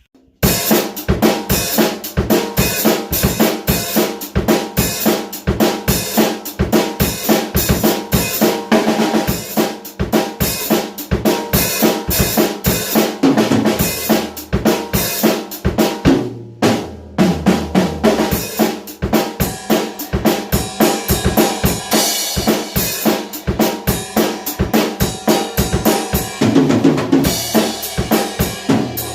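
Drum kit played in a fast, busy groove of snare, bass drum and cymbals, with a brief stop a little past halfway before the playing resumes.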